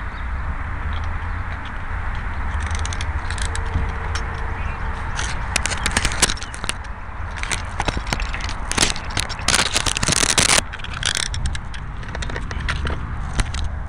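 Handling noise on the glider's onboard camera microphone: scraping, crackling and rubbing as the landed model plane is picked up and carried, with the loudest rub about ten seconds in. A steady low wind rumble runs underneath.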